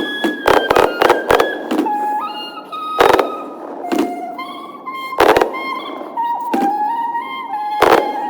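Background music with a stepping melody, overlaid by sharp firework bangs. A quick run of four comes about half a second in, then single bangs every two to three seconds.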